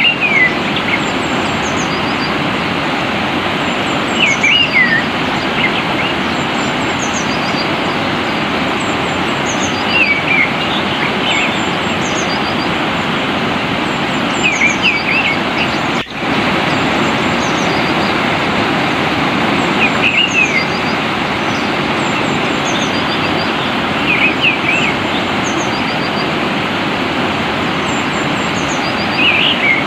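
Steady rush of flowing water, with a songbird giving short chirping phrases about every five seconds and fainter high-pitched chirps behind. The sound drops out for an instant about halfway through.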